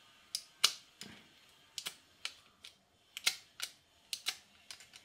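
A thin steel blade scraped and flicked against the teeth of a metal Beyblade's gold metal ring, striking sparks: about a dozen sharp metallic clicks at uneven intervals, the loudest about two-thirds of a second in.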